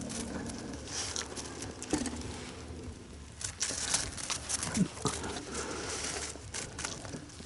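Dogs moving about close by: irregular rustling and light pattering, with two brief squeaky sounds about two and five seconds in.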